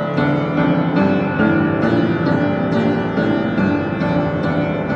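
Upright piano improvisation recorded on a cell phone: full, sustained chords in the low and middle register, with new notes struck about every half second.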